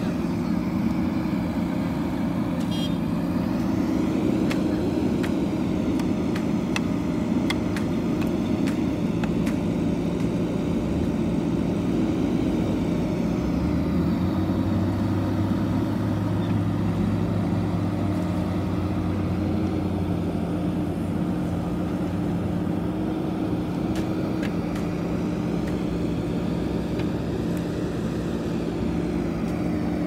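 JCB backhoe loader's diesel engine running steadily while the machine digs and loads soil, with a few short clanks in the first several seconds.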